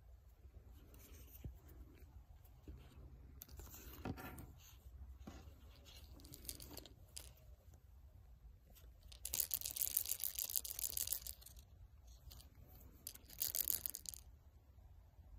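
Scratchy rustling of plush soft toys being handled and rubbed close to the microphone, over a low steady rumble, with two louder stretches about nine and thirteen seconds in.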